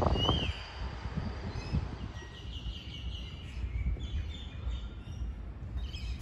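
Small birds chirping in short sliding calls, a few times, over a steady low outdoor rumble. A brief louder low rush opens the sound.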